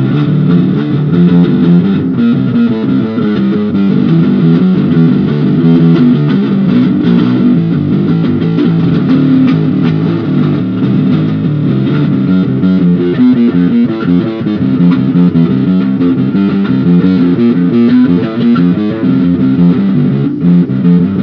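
Bass guitar played loudly, a continuous run of changing notes.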